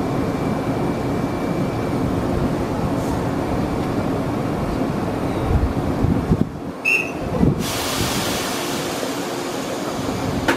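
Izukyu Kinme Train (2100-series electric train) standing at the platform, its onboard equipment giving a steady hum and hiss. About six and a half seconds in the hum drops briefly, a short high beep sounds, then a brighter hiss sets in.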